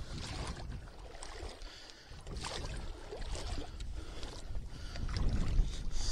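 Water splashing and sloshing as someone moves through the shallow pond toward a floating shot goose, with a low rumble underneath. It grows louder about five seconds in, as the goose is reached.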